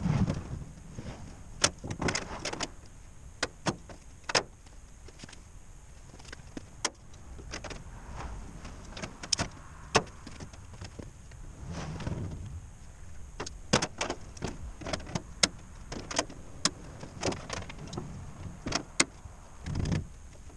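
Scattered sharp clicks, taps and knocks, with a few low rumbles, from a stainless sheet-metal door panel being handled and fitted against the snowcat's body.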